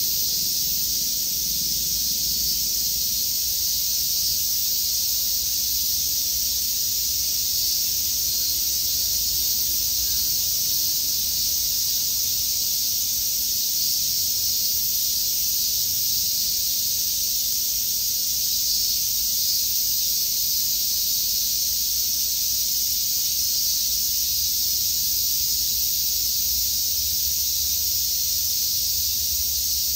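A summer cicada chorus: a steady, loud, high-pitched sizzling hiss that does not let up.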